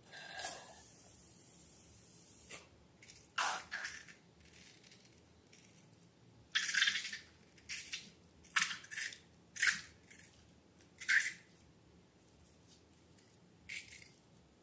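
Slime being handled, making wet squishing and dripping sounds: about ten short, separate squelches at irregular intervals.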